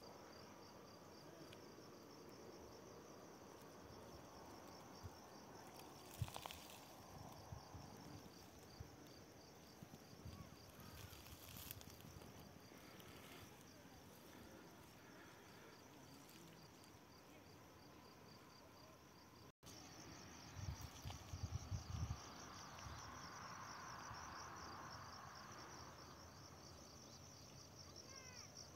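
Faint insects chirring outdoors in a steady, fast-pulsing high trill that gets a little louder about two-thirds in. A few low thumps come just after that.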